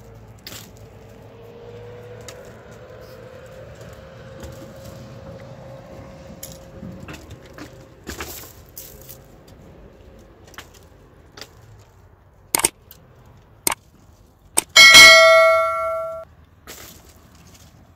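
A few sharp knocks, then a single loud metallic clang that rings with several overtones and dies away over about a second and a half, struck metal.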